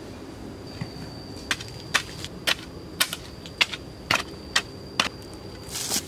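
Hard stone-on-stone knocks as rocks are struck together by hand: about eight sharp strikes, roughly two a second, starting about a second and a half in.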